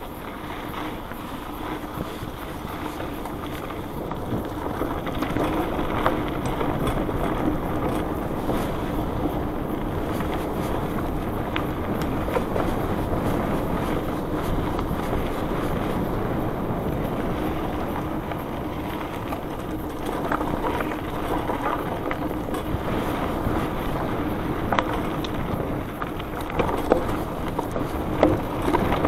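1992 Trek 820 rigid-fork mountain bike riding over a dirt and gravel trail on knobby Schwalbe Black Jack 26-inch tyres: a steady rolling rumble with a faint hum. Sharp rattles and knocks from bumps come through the rigid frame, more of them near the end.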